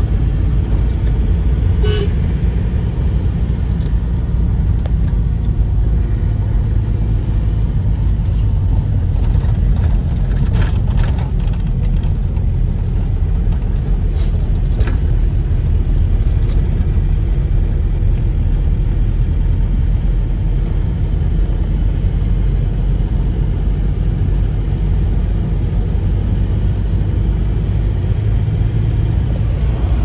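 A motor vehicle driving along a road: a steady low rumble of engine and road noise, with a short pitched sound about two seconds in and a few brief sharper sounds later on.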